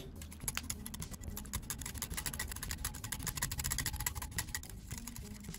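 Wire whisk beating yogurt with grated garlic in a glass bowl: rapid, irregular clicking of the wires against the glass.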